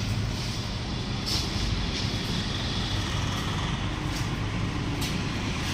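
A steady low engine rumble, with a few short sharp hissing sounds over it.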